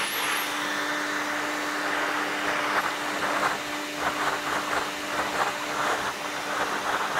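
VAX 121 multifunction vacuum cleaner running with a steady motor hum; from about two seconds in its sound turns uneven, pulsing irregularly.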